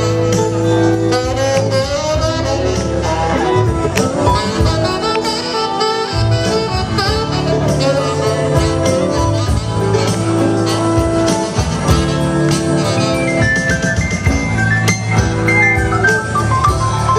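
Live band playing an instrumental passage: a saxophone lead over a steady bass line and drums.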